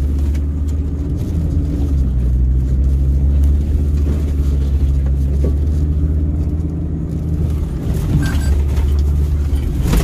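Off-road vehicle's engine running with a steady low drone, easing off briefly about three-quarters of the way through.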